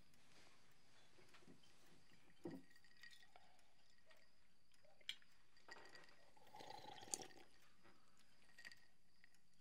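Near silence: quiet room tone broken by three faint clinks of tableware at the dinner table, the sharpest about seven seconds in.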